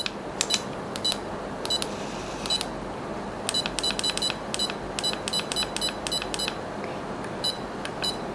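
Cordless dental endo motor giving short, high electronic beeps again and again at irregular intervals, the key-press beeps of its buttons as it is stepped through its settings and working modes.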